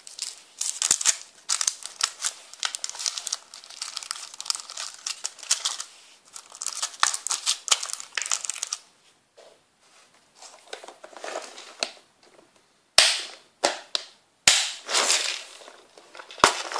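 Crinkling of the plastic packaging on a pack of wire fishing traces as it is handled and pushed into a clear plastic tackle box compartment, with light rattling of the box. Two sharp plastic clicks come about a second and a half apart, a little past three quarters of the way through, followed by more crinkling.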